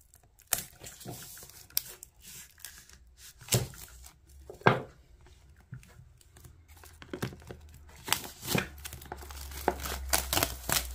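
Clear cellophane shrink-wrap being torn and peeled off a tarot card box by hand. The crackles and rips are scattered at first and come thicker over the last few seconds.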